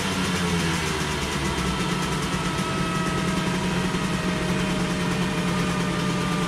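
Simson S51's 50 cc two-stroke single, fitted with twin exhausts, running off throttle on a roller dyno right after a full-throttle power run, with the roller and rear wheel spinning down; steady engine hum under higher tones that fall slowly.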